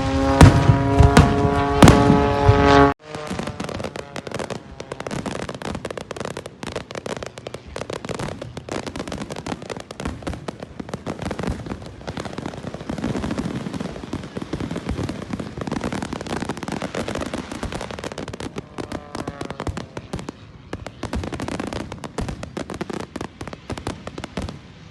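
Fireworks crackling and popping in a dense, irregular run of sharp reports. Before that, a loud pitched sound with steady tones cuts off suddenly about three seconds in.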